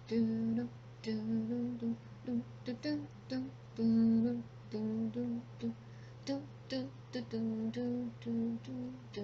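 A woman humming a tune in a run of short, held notes that step up and down in pitch, with small clicks between the notes, over a steady low electrical hum.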